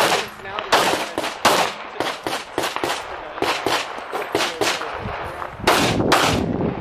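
Handgun fired in a fast string of a dozen or more shots, often two in quick succession, with short gaps between groups.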